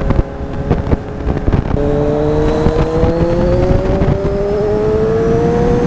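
Kawasaki Z1000 inline-four engine accelerating hard under the rider, its pitch climbing steadily from about two seconds in, over wind rumble. It runs through the stock exhaust with the pre-muffler box and the baffle cores removed, which gives it a deep tone that is not very loud.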